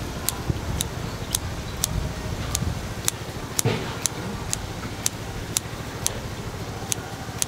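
Kitchen scissors snipping through a sundae (Korean blood sausage), crisp metal clicks about twice a second, with one duller knock partway through, over a steady low hum.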